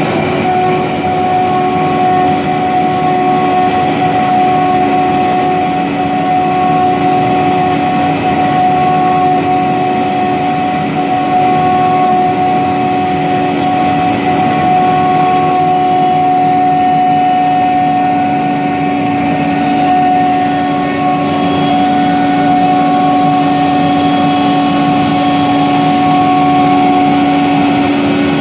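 CNC gantry wood router's spindle running at steady speed while milling, giving a steady whine over a constant cutting noise.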